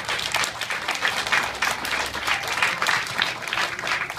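A seated audience of schoolchildren applauding, many hands clapping together.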